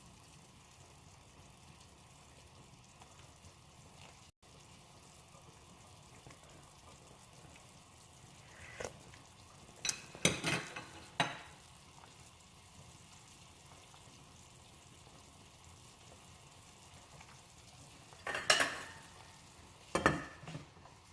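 A cooking utensil clinking and scraping against a pot in two short spells, about nine seconds in and again near the end, over a faint steady hiss of food cooking on the stove.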